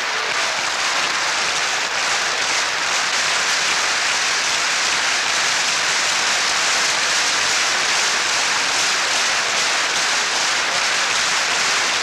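Large audience applauding, a dense, steady clapping.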